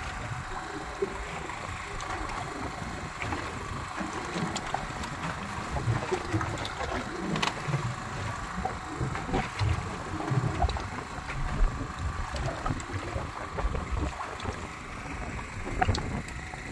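Sea water splashing and sloshing against the side of a small fishing boat, with an uneven low rumble and scattered sharp knocks.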